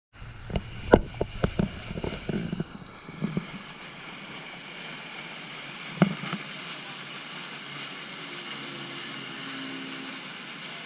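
Boat under way on open water: a steady rushing sound of the hull and motor, with a run of bumps and knocks in the first few seconds and one sharp knock about six seconds in.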